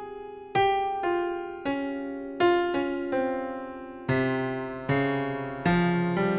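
Slow instrumental piano music: chords struck about once a second, each ringing and fading away. Lower bass notes join about four seconds in.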